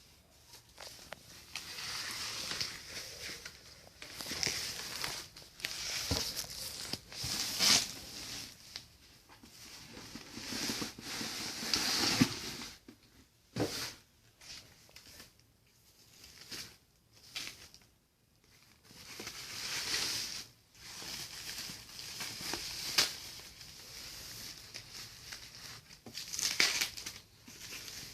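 Packaging being handled while unboxing a monitor: irregular bursts of rustling and crinkling, with a few sharp knocks and clicks.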